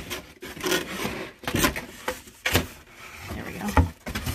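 Cardboard rubbing and scraping, with several sharp knocks, as a shipping box is turned over and a cardboard display carton is slid out of it.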